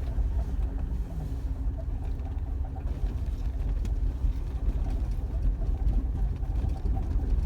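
Jeep Wrangler driving slowly on a rough dirt trail, heard from inside the cab: a steady low engine and drivetrain rumble with occasional light ticks and rattles.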